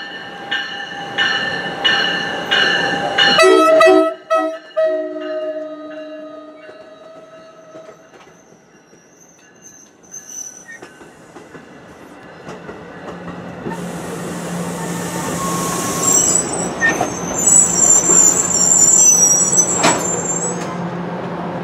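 NJ Transit Multilevel commuter train arriving: a bell rings steadily about twice a second, then the leading cab car sounds a short horn blast about three seconds in. The coaches roll past with rising noise, and the brakes squeal high-pitched for the last few seconds as the train draws to a stop.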